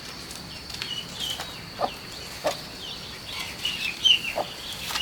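Chickens being herded, with many short high peeps and clucks and a few brief wing flaps. A steady high insect drone runs underneath and stops about halfway through.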